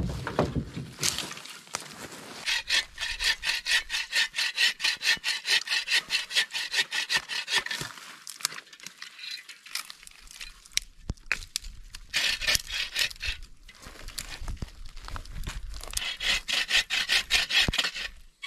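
Hand saw cutting through dry sticks for firewood, in three spells of quick, even strokes with short pauses between.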